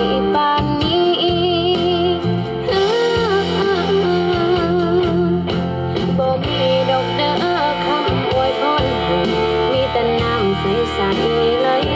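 Music: a song with guitar and a wavering lead melody over steady bass notes.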